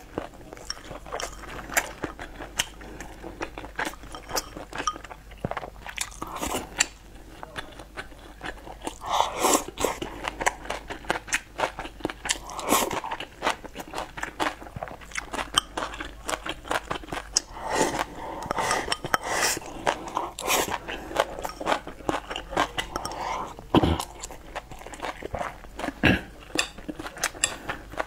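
Close-miked eating: chewing and slurping from a soup bowl, full of small sharp clicks.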